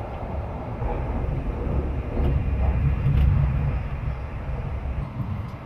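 Running noise inside a Twilight Express sleeper carriage in motion: a steady low rumble of wheels on rails that grows louder in the middle, with a few faint clicks.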